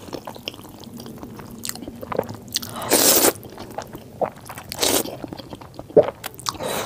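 Close-miked slurping and chewing of saucy thin instant noodles. There is a long loud slurp about three seconds in and a shorter one near five seconds, with wet chewing and lip smacks between.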